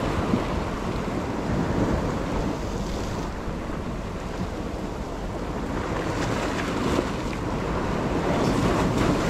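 Sea waves washing and breaking against rocks, swelling and easing, with wind buffeting the microphone.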